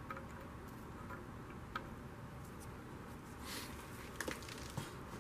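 Gloved hands handling an aluminium gearbox bell housing and its broken-off piece: a few light clicks and taps, with a short rustle about three and a half seconds in, over a steady low hiss.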